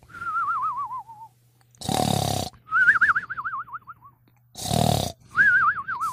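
Cartoon snoring sound effect: rough snores alternating with warbling whistles that slide down in pitch, three whistles and two snores in a steady rhythm.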